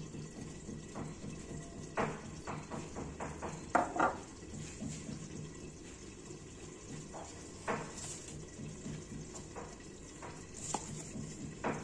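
Kitchen utensils knocking and clinking on a work surface: a few sharp knocks about two, four, eight and twelve seconds in, with lighter taps between, over a faint steady hum.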